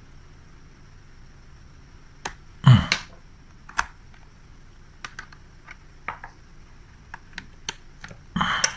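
Scattered sharp clicks and key taps of someone operating a computer, with two louder clattering knocks, one about three seconds in and one near the end.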